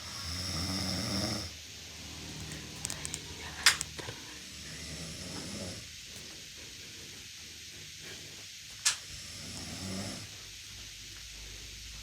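A young boy snoring in his sleep: three long snoring breaths four to five seconds apart, the first the loudest. A quick run of sharp clicks about three seconds in and a single loud click near nine seconds stand out above the snoring.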